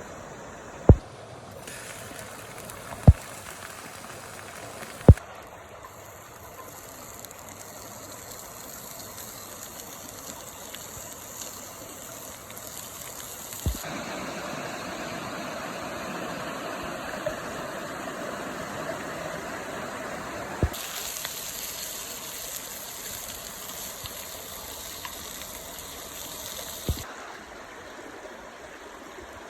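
River or stream water running steadily, its sound shifting abruptly several times, with a sharp click at most of the changes and three loud clicks in the first five seconds.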